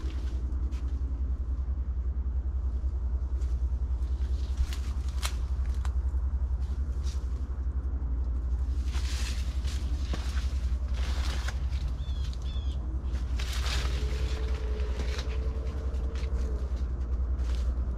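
Corn leaves rustling and brushing past as someone walks along a row of corn, over a steady low rumble. A couple of short high chirps come a little past the middle, and a faint steady hum sounds in the last few seconds.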